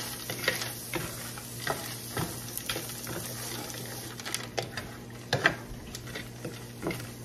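Mixed vegetables sizzling in butter in a large skillet while a wooden spatula stirs them, scraping and knocking against the pan at irregular intervals; the sharpest scrape comes about five and a half seconds in.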